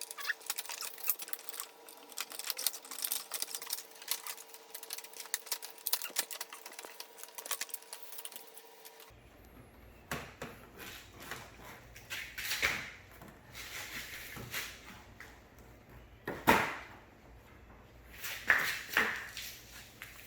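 Hard plastic fairing panel and its clips being handled and worked into place on a Can-Am Spyder RT: many quick light clicks and rattles, then a few scrapes and knocks of plastic being pressed home.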